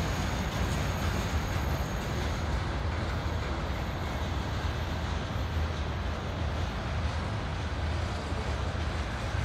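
Freight train of covered hopper cars rolling past on the rails: a steady, even noise with a strong low component.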